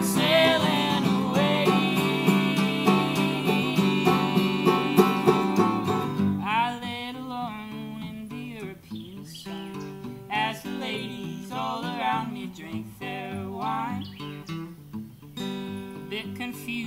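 Acoustic guitar and banjo playing an instrumental break in a bluegrass-country style, busy and loud at first, then dropping to a quieter, sparser passage about six seconds in.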